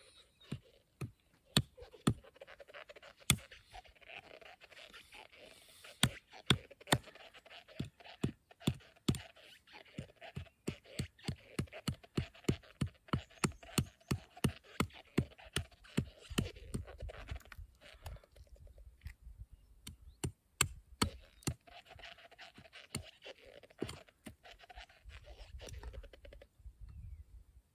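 A hatchet knocking and cutting into small sticks of kindling held against a wooden block: a long series of sharp, short knocks, about two a second and quicker in the middle, with scraping between strokes.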